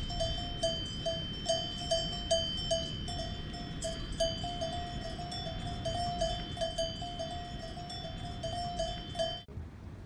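Cowbell clanging irregularly, a few strikes a second, with a ringing metallic tone. It stops abruptly shortly before the end.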